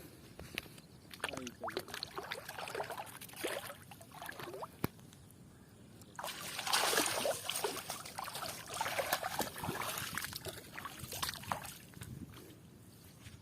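Water splashing and sloshing, broken up in the first half, then a louder, continuous stretch of splashing and churning through the middle and later part.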